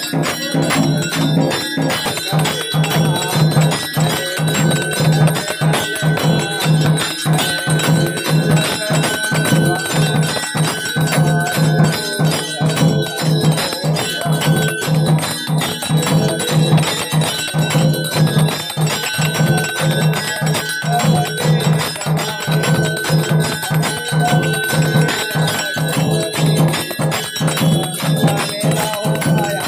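Temple bells ringing continuously in fast, dense strikes during Hindu worship, over a steady low hum.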